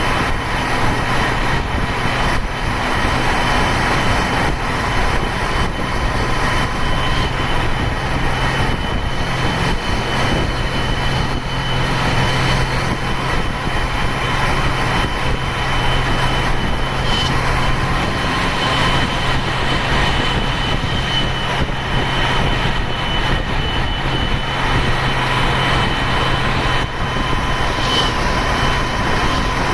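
Ashok Leyland BS-3 bus's turbo-intercooled diesel engine running steadily, with a high turbo whistle held over the low engine drone.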